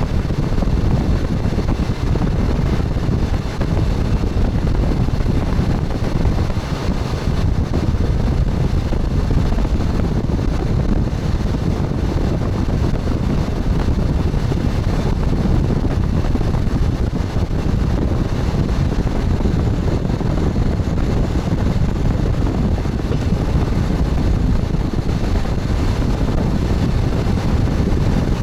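Steady rumble of a moving train's wheels and running gear, heard from inside the front driver's cab of an express train, with some wind noise.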